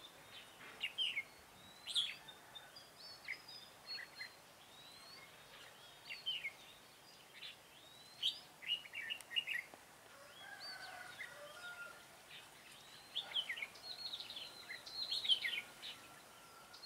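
Red-whiskered bulbuls singing: a string of short, quick chirping phrases with brief pauses between them.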